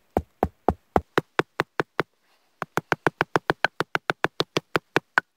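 Rapid, evenly spaced wood-on-wood knocks, about five a second, each with a short hollow ring: a piece of hardwood being tapped to seat a log of a bushcraft bench flush. Two runs of knocks with a brief pause about two seconds in.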